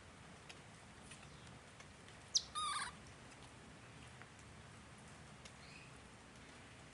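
A monkey gives one sharp, high squeak about two seconds in, followed at once by a short, rapid chattering trill. A few faint ticks sound against a quiet background.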